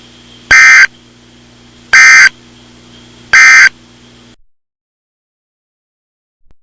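Three short, loud bursts of EAS SAME digital data, the end-of-message code closing the alert, about a second and a half apart. A low steady hum and hiss runs under them and cuts off a little after the third burst.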